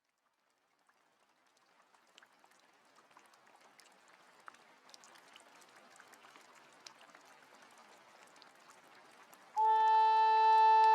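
Rain sound effect fading in: a soft hiss with scattered drop ticks, slowly growing louder. About nine and a half seconds in, a loud held wind-instrument note starts the music.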